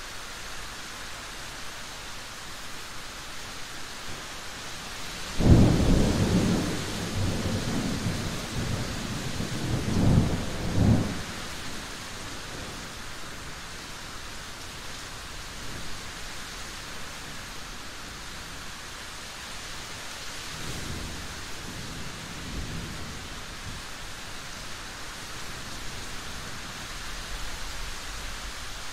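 Steady rain falling, with thunder: a sudden loud rumble about five seconds in that rolls on for about six seconds with two more peaks, then a fainter rumble about two-thirds of the way through.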